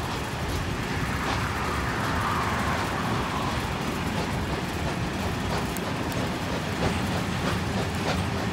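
Steady rumble and rattle of a steam-hauled train carriage running along the track, with occasional faint clicks of the wheels.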